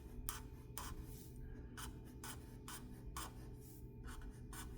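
Pen scratching on paper in short, quick strokes, about two a second, drawing the row of teeth along a saw blade.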